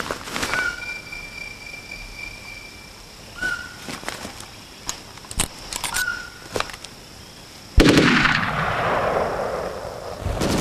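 Film battle soundtrack: a quiet stretch of scattered clicks, short high chirps and a steady high tone, then a sudden loud explosion about eight seconds in, its rumble fading away over the next two seconds as a bombardment begins.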